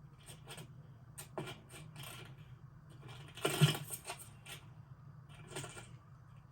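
A quick series of short rustling and clicking sounds, the loudest about three and a half seconds in, over a steady low hum.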